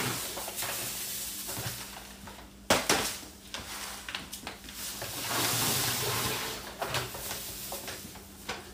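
Granulated sugar pouring out of a paper bag into a plastic barrel of hot water, a hissing pour. A sharp knock comes a little before halfway, then a second bag pours with the same hiss, with a few light handling clicks.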